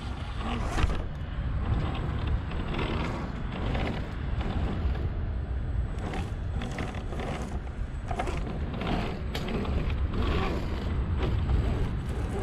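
RC rock crawler's electric motor and geartrain grinding along at crawling speed, picked up by a camera on its hood, with irregular scrapes and knocks of tyres and chassis over rock and dry leaves.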